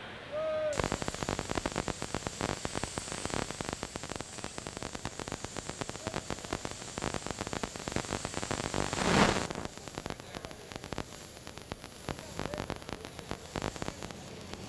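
Crackling, hissing noise that starts abruptly under a second in, with a swell about nine seconds in.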